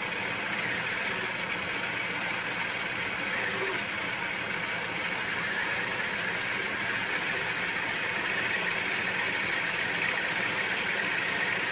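Atlas 618 bench lathe running steadily under power.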